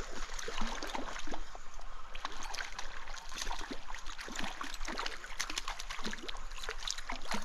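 Stream water running, with many quick splashes and clicks as a hooked brown trout is fought and reeled in.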